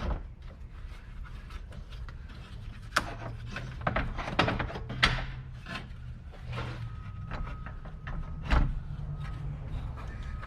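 Scattered knocks, clicks and rubbing of parts being handled as a new radiator is set into place in a car's engine bay, over a steady low hum.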